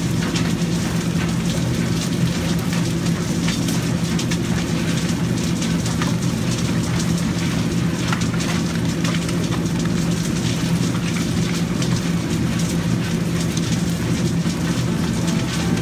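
Ecohog Airhog EH-81 air suction separator running: a steady low hum under rushing air, with a dense patter of small ticks, as it pulls the superlight fraction out of construction and industrial waste.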